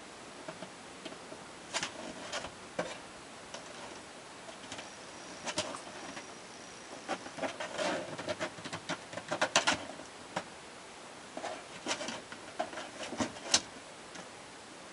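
A run of irregular sharp clicks and taps, sparse at first and busiest in the middle.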